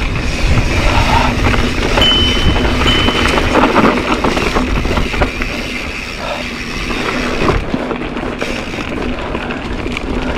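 Mountain bike riding down a dirt singletrack: knobby tyres crunching over the trail and the bike rattling and clattering over bumps, steadily throughout.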